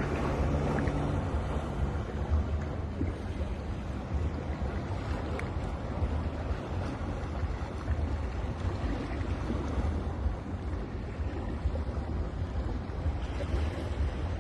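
Sea waves washing onto a beach: a steady rushing noise over a deep rumble, with wind on the microphone.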